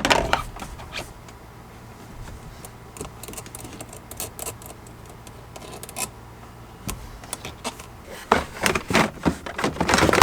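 Scattered clicks and rattles of car interior parts being handled as the shift knob and center console are taken off, with a denser, louder burst of rattling near the end.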